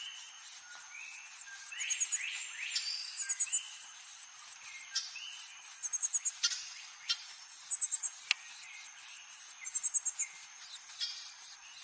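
Puerto Rican oriole calling: short whistled notes and quick rising slurs, some in brief chattery runs. Behind them runs a fast, even high-pitched chirping, about five chirps a second.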